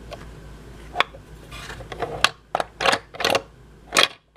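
Hard plastic toy parts clicking and knocking as the Shopkins So Cool Fridge's push, pop and drop freezer dispenser is worked: a click, a short scrape, then a run of sharp clacks in the second half.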